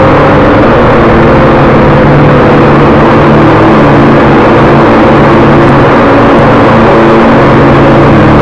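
Small quadcopter drone's propellers and motors humming steadily, heard loud and close on the drone's own microphone: an even, unchanging drone of several steady tones over rushing hiss.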